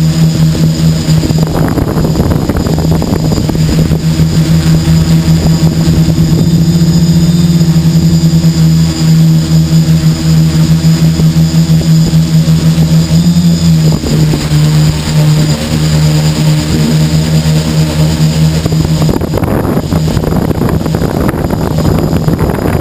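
Electric motors and propellers of a multirotor quadcopter humming steadily, heard close from the craft's own onboard camera. The pitch shifts slightly about halfway through, and there are rushes of noise about two seconds in and again near the end.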